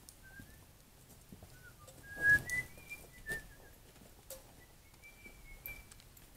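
A string of short, clear whistled notes, some sliding up or down in pitch. Faint clicks and one louder knock about two seconds in come from gun and shell handling.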